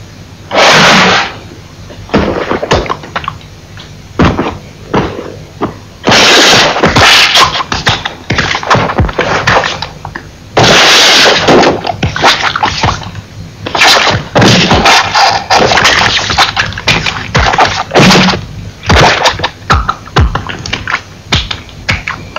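Animated-film sound effects: a busy run of knocks, thuds and crashes, broken by several loud bursts of hissing noise.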